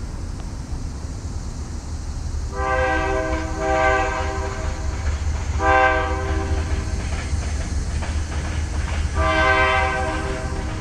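Union Pacific diesel locomotive's air horn sounding four blasts, the first two close together, in the pattern blown for a grade crossing, over the low rumble of the passing locomotives.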